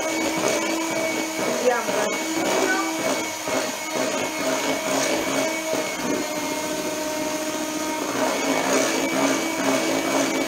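Electric hand mixer running steadily, its beaters whirring through thick cake batter in a bowl.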